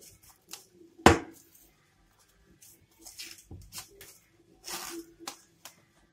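Plastic cling film crinkling and rustling as it is pulled from its roll and pressed around a glass bowl, with one sharp knock about a second in.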